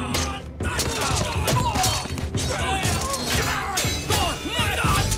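Staged fight sound: repeated crashes and smashing impacts over dramatic background music.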